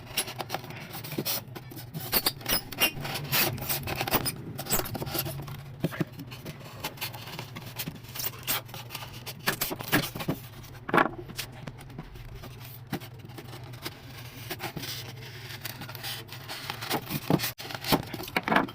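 Irregular scraping and rubbing with scattered sharp clicks and knocks, from hand work on a material. A low steady hum runs underneath.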